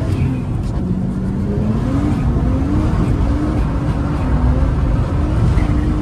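Car engine heard from inside the cabin. It revs up and down several times as the throttle is worked, dipping lowest about a second in and climbing again near the end, over a steady low rumble of road and wind noise.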